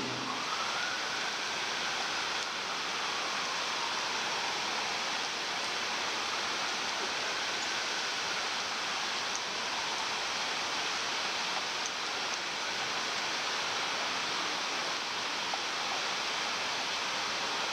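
Heavy rain falling steadily on the trees and wet street: a constant, even hiss.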